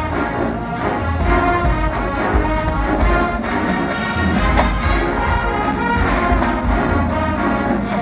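Marching band playing: full brass section with drums and low brass driving a steady beat, part of a Motown-themed field show.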